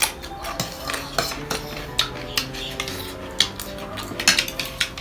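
Cutlery clinking and scraping against a plate again and again during a meal, over background music.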